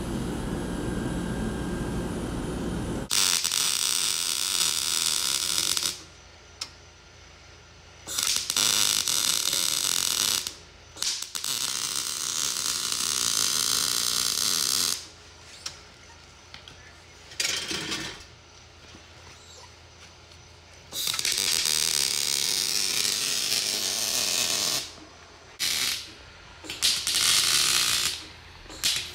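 An angle grinder runs with a flap wheel against a stainless steel exhaust tip for about three seconds. Then a MIG welder welds an exhaust pipe in about six separate runs of steady hiss, each one to four seconds long, with short pauses between.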